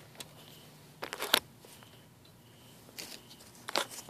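Clicks and clatter of a laptop hard drive in its metal caddy being handled and fitted into the drive bay on the laptop's underside: two short clusters of sharp clicks, one about a second in and one near the end.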